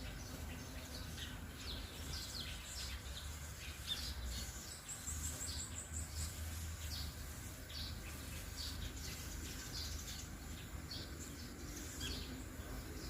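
Birds chirping, many short falling calls repeating one after another, over a steady low hum.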